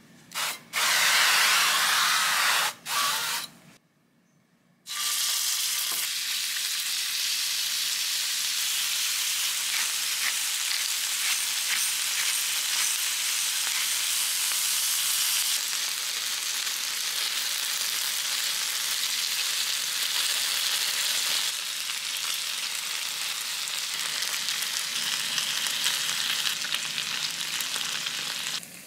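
A few short, loud hisses of cooking oil being sprayed onto a grill pan, then after a brief pause a steady sizzle of meat, bacon-wrapped and shrimp skewers frying in the pan.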